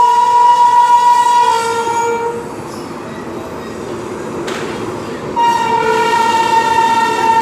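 WAP-5 electric locomotive's horn sounding two long blasts, one ending about two seconds in and the next starting about five and a half seconds in. Between them is the running rumble of the train with a single clank.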